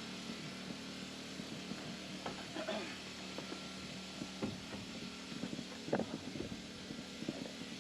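A steady mechanical hum with scattered faint knocks and clicks, the sharpest knock about six seconds in.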